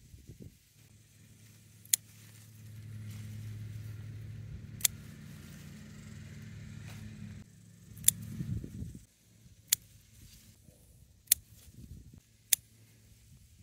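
Garden scissors snipping through water spinach stems: six sharp snips spread out, with leaves rustling as a cut bunch is gathered a little after halfway. A steady low engine hum runs under the first half and stops a little past the middle.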